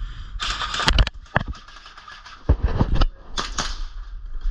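A few sharp cracks and knocks: one about a second in and a quick cluster of three around two and a half to three seconds in, with bursts of rustling, shuffling noise between them.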